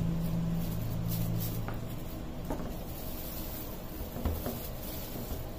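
Soft handling sounds of a spoon spreading ground-pork mixture on a plastic sheet over a cutting board, then the plastic being folded over the meat, with a few faint taps. A low steady hum runs through the first couple of seconds and then stops.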